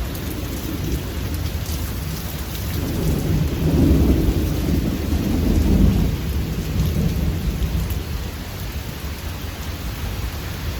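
Thunder rumbling over steady rain, swelling to its loudest in the middle and fading back.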